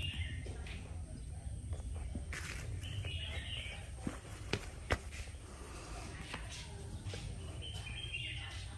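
Handling noise from a used 1/2-inch pneumatic impact wrench being turned over by hand on concrete: scattered light clicks and knocks as its trigger and forward-reverse switch are worked, with a few sharper taps about four to five seconds in.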